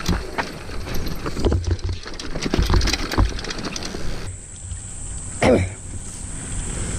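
Mountain bike riding over a rough, rocky dirt trail: a stream of clattering knocks and rattles over low tyre and wind rumble. About four seconds in it drops to quieter, smoother rolling, with one short falling sound just past five seconds.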